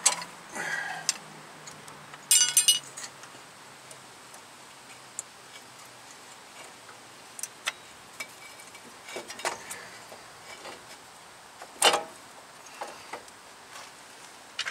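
Scattered metallic clinks and light knocks of a brake caliper being handled and fitted back over the rotor. A short jangling metallic ring comes about two and a half seconds in, and a sharper knock near twelve seconds.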